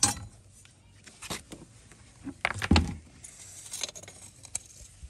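Metal tongs clinking and knocking against loose stones: several sharp clicks, the loudest a heavier knock with a low thud a little under three seconds in.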